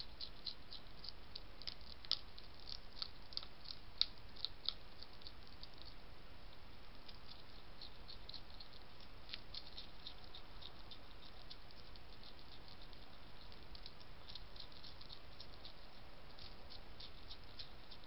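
European hedgehog crunching dry pellet food from a plate: quick runs of crisp crunches and clicks, loudest in the first few seconds, with a short lull about six seconds in, over a steady low hiss.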